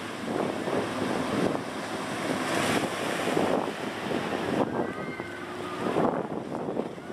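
Gusty wind buffeting the microphone over the steady wash of ocean surf.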